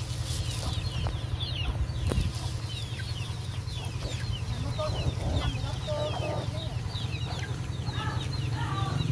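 Chicks peeping continuously, many short, high, falling peeps in quick succession, with a lower clucking call around the middle and again near the end, over a steady low hum.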